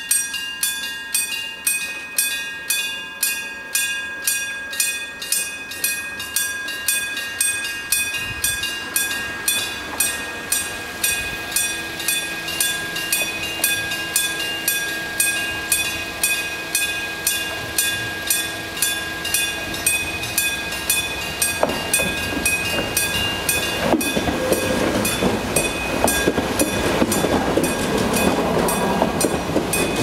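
Bell-type railway level-crossing alarm, a mechanical bell struck in a steady even rhythm, roughly two strikes a second. Past the two-thirds mark an electric train's running noise builds and is loudest as it passes the crossing near the end.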